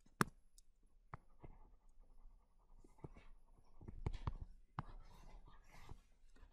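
Faint stylus scratching and tapping on a tablet screen as a word is handwritten and a box is drawn around it, with several sharp taps among the strokes.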